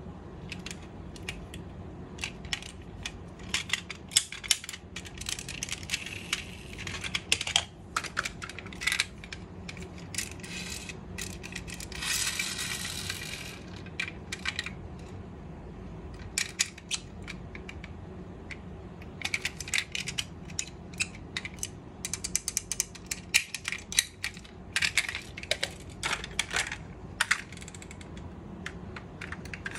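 Diecast metal model cars being handled: small opening doors and metal and plastic parts clicking and rattling in quick clusters, with a brief rasping sound about twelve seconds in.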